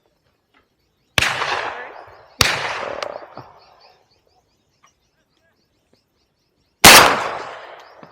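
Three shotgun shots: two about a second apart early on, then a third, the loudest, near the end. Each rings out in a long fading echo, with faint high bird chirps between them.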